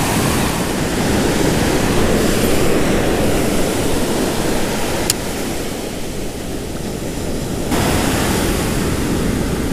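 Ocean surf breaking and washing up the sand close by, a steady rushing noise.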